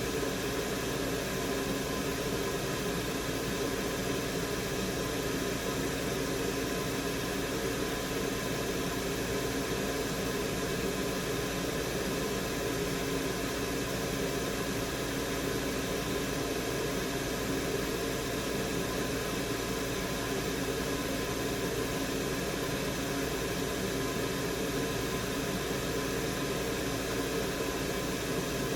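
Fume extractor fan running steadily, an even rushing noise with a faint hum that does not change.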